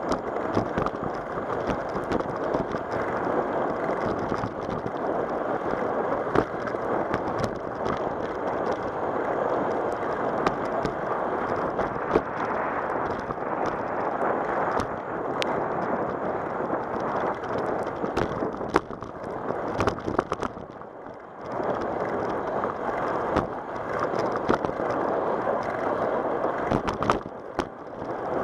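Bicycle riding on a cracked asphalt trail: a steady rush of tyre and wind noise on the bike-mounted camera, with scattered clicks and knocks from bumps in the path. It drops away for about a second roughly twenty seconds in.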